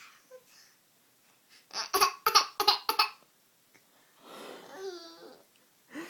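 A baby's vocal outburst: about five sharp, breathy bursts in quick succession, then a quieter drawn-out babbling coo with wavering pitch.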